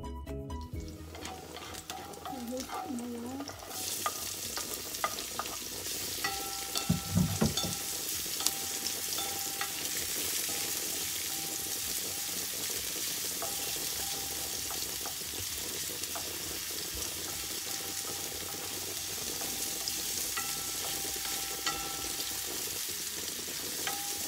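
Chopped onion and garlic sizzling in hot oil in a stainless steel frying pan, stirred with a wooden spatula that scrapes and taps against the pan. The sizzle rises sharply about four seconds in, then holds steady.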